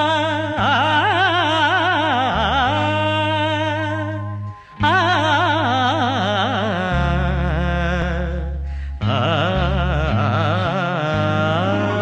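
Background music: a melody held on long notes with strong vibrato over sustained low bass notes, with a brief pause about halfway through.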